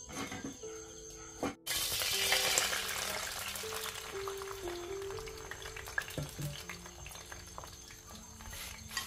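Food frying in hot oil in a pan: a dense crackling sizzle that starts suddenly about a second and a half in, is loudest just after, and slowly dies down. Background music plays throughout.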